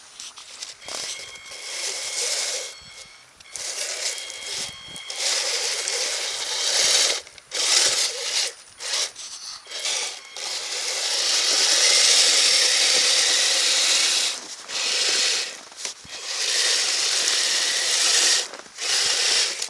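Radio-controlled Kyosho Blizzard snowcat running in snow: a faint whine from its electric drive under scraping and crunching from the tracks and blade, in stop-start bursts.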